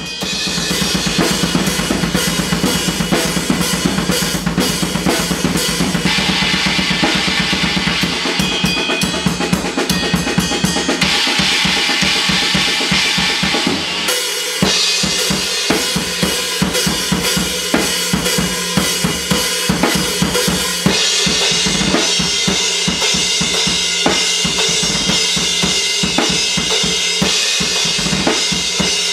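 Drum kit played in heavy-metal patterns: fast bass drum strokes under snare and cymbals. The pattern changes several times, with a short break about halfway through.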